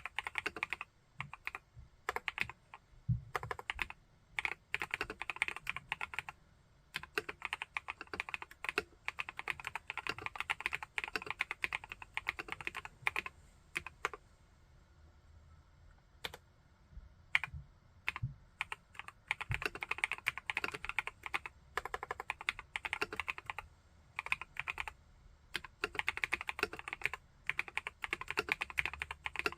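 Typing on an Epomaker Brick 87 mechanical keyboard with Epomaker Wisteria linear switches: quick runs of keystrokes broken by short pauses, with a few heavier, deeper key hits among them.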